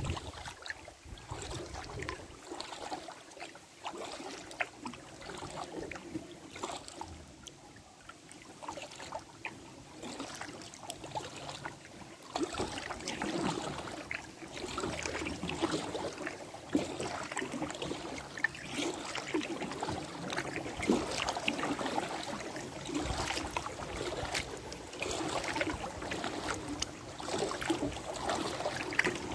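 Kayak paddle strokes splashing and dripping in the water, getting louder about halfway through.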